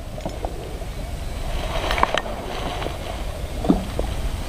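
Steady low wind rumble on the microphone, with a few light knocks about two seconds in.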